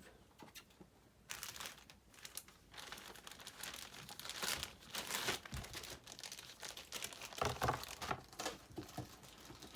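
Packing material crinkling and rustling as a graded comic slab is pulled from its shipping box. The first second is quiet, then the crackling runs on in irregular bursts.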